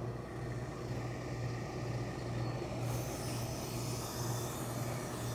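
A steady low mechanical hum throughout, joined about three seconds in by the hiss of steam from a gravity-feed steam iron pressing the trouser seam.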